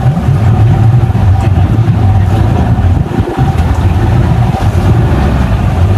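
Motorboat engine running steadily: a loud, even low rumble with a steady higher hum above it.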